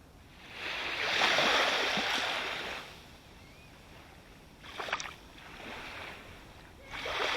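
Ocean waves breaking close by: one wave surges and washes in for about two seconds, a short sharp splash comes near the middle, and another wave breaks near the end.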